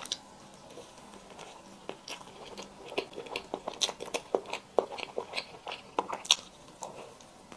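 Close-miked eating: crisp bites and crunchy chewing, a string of sharp crackles that come thickest in the middle of the stretch.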